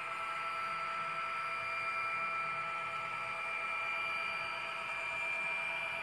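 A model locomotive sound decoder plays a steady diesel locomotive engine sound through its small onboard speaker, heard as a level hum with several fixed high-pitched tones.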